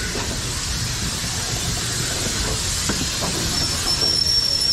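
Steam locomotive letting off steam: a steady hiss over a low rumble, with a thin high-pitched tone joining about three and a half seconds in.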